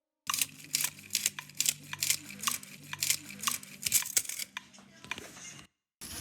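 Hand-made foley effects from classroom objects: a run of sharp, irregular clicks and taps, about two or three a second, over a faint low hum, thinning out about four and a half seconds in.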